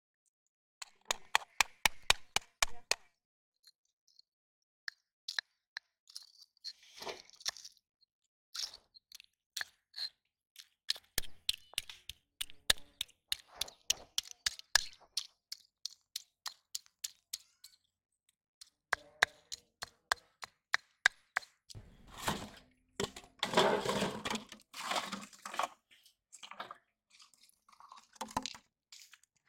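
Freshwater snail shells being crushed with a stone against a rock: bouts of quick crackling and crunching of breaking shell, with a denser stretch of crunching about 22 seconds in.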